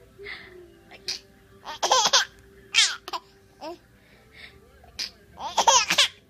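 A baby laughing in loud fits, about two seconds in and again near the end. Each fit follows a short, sharp sneeze from an older child.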